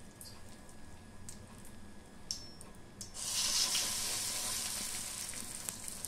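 Thick urad dal and rice-rava batter dropped onto a hot oiled brass pan, setting off a sudden sizzle about three seconds in that slowly dies down. Before it, a few faint scattered clicks from the hot pan.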